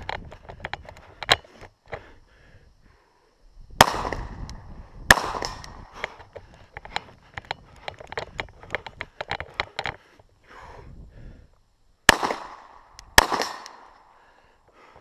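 Four Glock pistol shots in two pairs, each pair about a second apart, with the second pair coming near the end. Each shot cracks sharply and rings out. Between the pairs there is light, irregular crunching of footsteps on dirt and sand.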